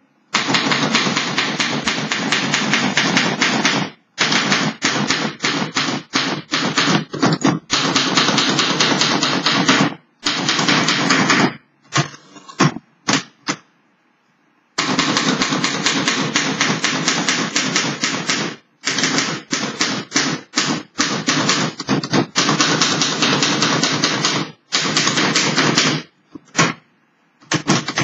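Fully restored 1913 Underwood Standard No. 5 manual typewriter being typed on: rapid runs of typebar strikes broken by short gaps, with a pause of a few seconds about halfway through.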